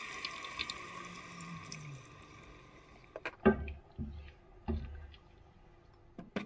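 Chicken stock pouring from a glass measuring jug into a pot, trailing off after about two seconds. Then a spatula stirs the soup, knocking against the pot several times, loudest about three and a half seconds in.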